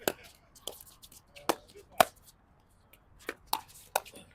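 Pickleball rally: sharp hollow pops of paddles striking the hard plastic ball and the ball bouncing on the court, about seven irregular hits, the loudest about two seconds in.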